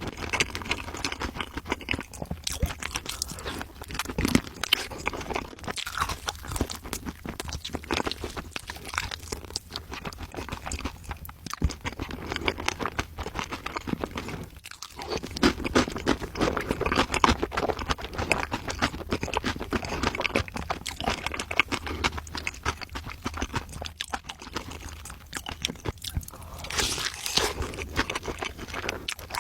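Close-up crunching and chewing of food, in irregular bites with short pauses.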